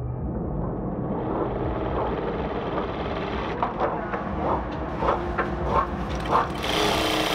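Dürkopp Adler 261 industrial lockstitch sewing machine stitching fabric. A run of sharp knocks about every half second comes in the middle, and it runs louder and fuller near the end.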